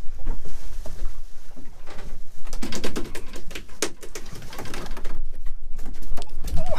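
Close rustling, scuffing and knocking as a fish is handled right next to the microphone, over a steady low wind rumble on the mic. A few short, low hum-like sounds are mixed in.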